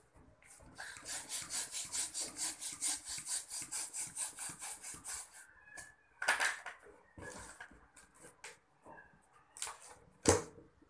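Red plastic hand balloon pump worked in quick, even strokes, a rhythmic rush of air several times a second as a latex balloon is inflated. The pumping stops about halfway through, followed by a few louder rubbing and knocking sounds, the sharpest near the end.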